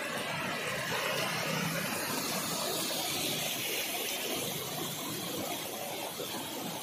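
Steady rushing noise of heavy rain and muddy floodwater running across a road.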